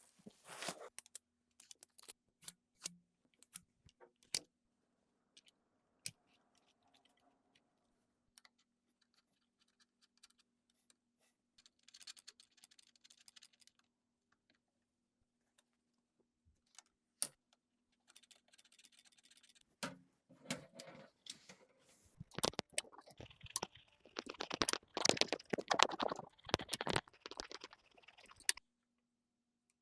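Scattered clicks and taps of computer hardware being handled and fitted together, with a denser stretch of rustling and clattering near the end that stops abruptly.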